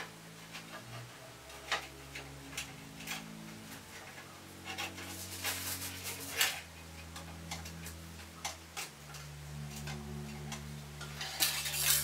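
Irregular light metallic clicks and scrapes of a wire coat hanger poking along the gap between the washing machine's stainless drum and its outer tub, nudging a loose metal fragment round to the bottom. The scraping gets busier about halfway through and again near the end.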